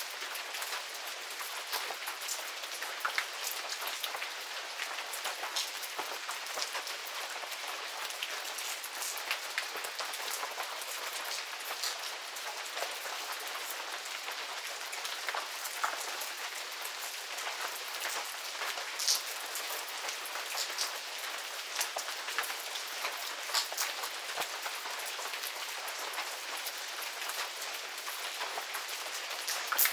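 Medium rain falling steadily, a constant hiss with many distinct drops pattering on surfaces.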